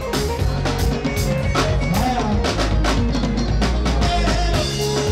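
Live band music: a drum kit keeping a steady beat with snare and bass drum over electric bass guitar lines, with one long low bass note held through the middle.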